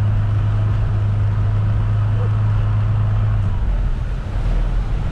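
An engine running steadily with a low hum that drops in pitch about three and a half seconds in.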